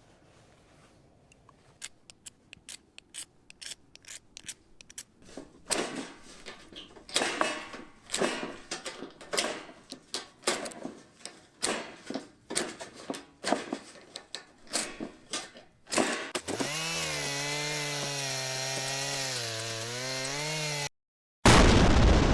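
Hand pull saw cutting through wood in repeated rhythmic strokes, about two a second. Near the end the strokes give way to a steady tone that wavers in pitch, and then to a sudden loud whoosh that fades out.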